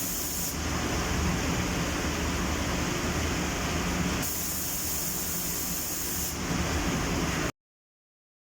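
Steady hiss of a compressed-air paint spray gun spraying, over a low machine hum. The hiss shifts in tone about half a second in, again around four seconds in and after six seconds, then cuts off suddenly near the end.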